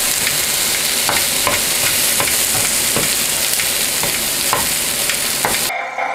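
Sliced peppers sizzling in a frying pan as they are stirred with metal kitchen scissors: a steady sizzle with scattered light clicks of the scissors against the pan. It cuts off suddenly near the end.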